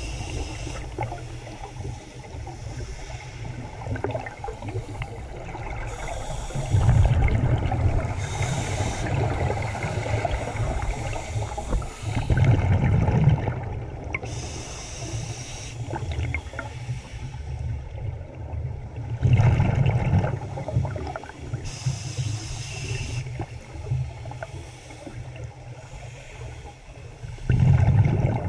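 Scuba diver breathing on a regulator underwater, heard muffled through a GoPro dive housing: hissing inhalations alternating with loud rumbling bursts of exhaled bubbles, four bubble bursts several seconds apart.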